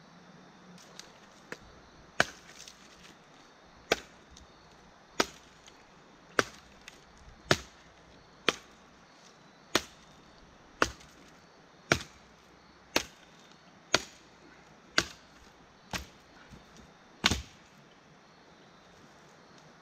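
Firewood being chopped: about fourteen sharp strokes, roughly one a second, each a crisp crack.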